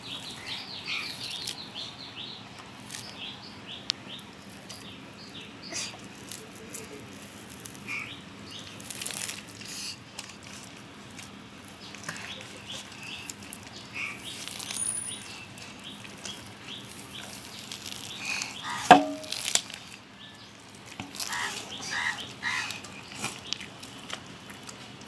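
Hands peeling and pulling at the skin and fibres of a ripe palmyra palm fruit: scattered soft clicks and rustles, with one sharp click about three-quarters of the way through as the loudest sound. Birds chirp now and then in the background.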